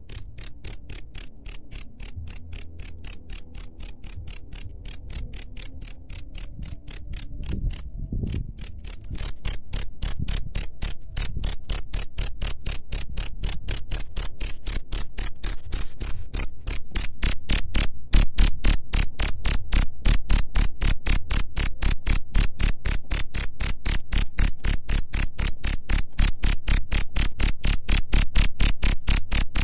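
Cricket chirping in a steady, regular train of short high-pitched chirps, about three a second. There is a brief break with a low thump about eight seconds in, after which the chirping is louder.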